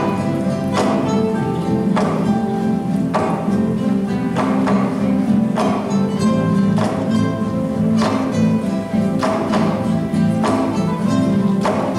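Ensemble of classical guitars playing together, with chords struck about once a second over ringing notes.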